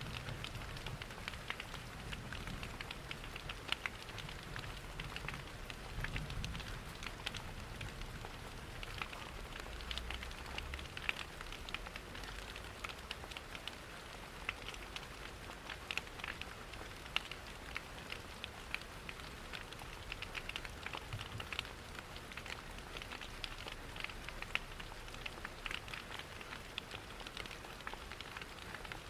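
Steady rain pattering, mixed with the scattered sharp crackles of a wood fire in a fireplace. A low rumble underneath is stronger during the first third.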